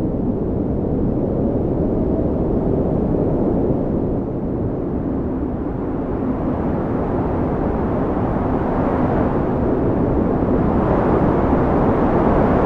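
Strong wind blowing with a low, steady rushing noise, building into a stronger gust near the end.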